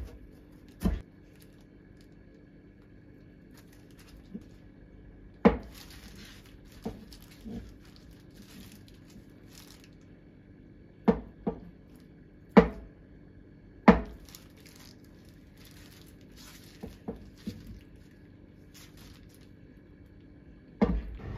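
Chef's knife cutting a block of firm tofu, each stroke ending in a sharp knock of the blade on a plastic cutting board; about seven knocks at uneven intervals, with soft rustling between them.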